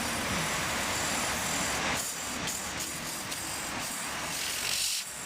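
Pressurized gas hissing out of an opened refrigeration compressor line, carrying compressor oil out with it. The hiss is steady, grows louder and higher about four seconds in, and cuts off suddenly near the end.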